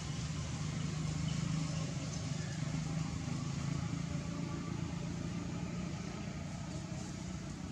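A steady low engine hum, such as a motor vehicle running, over an even background hiss.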